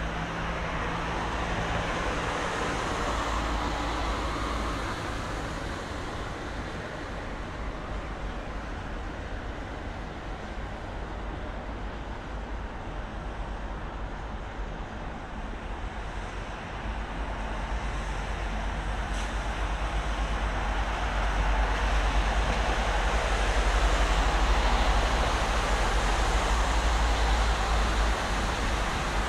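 Steady city road traffic with a low rumble as cars pass along the riverside road. It swells louder for about ten seconds in the second half as more vehicles go by close to the microphone.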